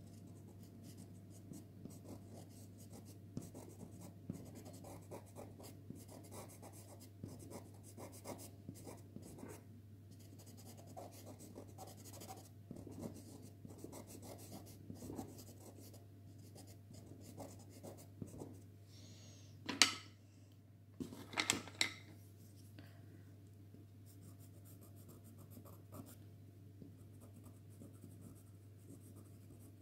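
Pastel pencil scratching on pastel card in many short, irregular strokes as small details are drawn. About two-thirds of the way through come a few much louder sharp knocks.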